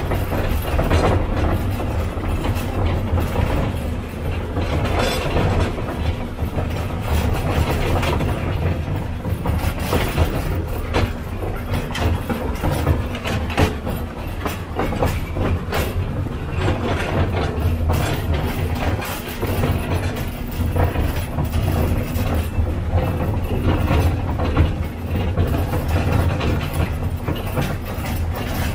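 Narrow-gauge field railway train running along the track: the wheels clatter irregularly over the rails and joints over the steady drone of the small locomotive's engine.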